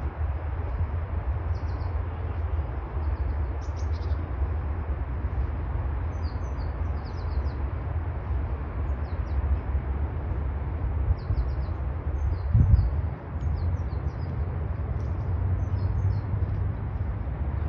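Small birds chirping: short, high chirps repeating on and off throughout, over a steady low rumble. A brief louder bump comes about twelve seconds in.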